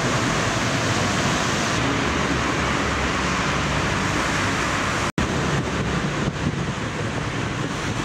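Kohler SDMO diesel generator set running steadily: a constant low engine hum under a broad hiss, broken by a momentary gap about five seconds in.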